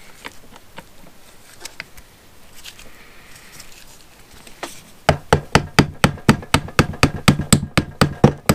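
Light handling clicks, then from about five seconds in a rapid, even tapping on the TS185's aluminium crankcase, about four or five strikes a second, as the tachometer drive assembly is knocked into its bore.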